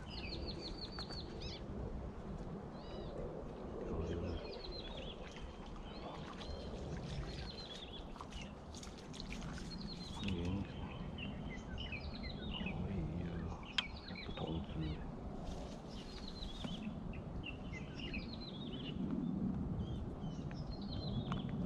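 Birds calling over and over in short, high chirps that mostly slide downward in pitch, over a steady low background rumble.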